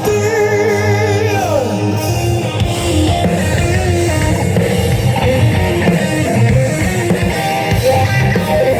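Live rock band playing an instrumental passage: a wavering lead line that slides down in pitch about a second and a half in, over distorted guitars, bass and drums.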